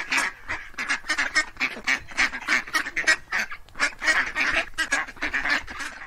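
Ducks quacking in a fast, overlapping chatter of short calls, several a second, which cuts off abruptly at the end.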